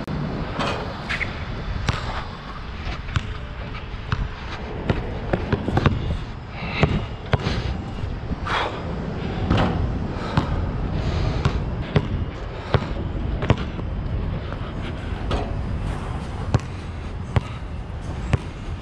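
Nike True Grip basketball bouncing on the court: repeated sharp slaps at an uneven pace, coming thicker from about five seconds in, over a steady low rumble.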